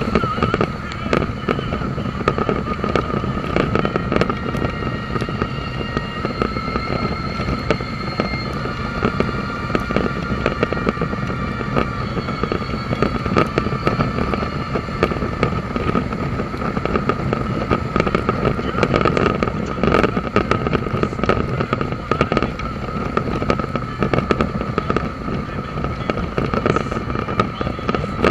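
Dense crackling of rain striking the microphone during a ride on a Suzuki V-Strom motorcycle, over a steady rumble of wind and engine. A steady high whine runs under it.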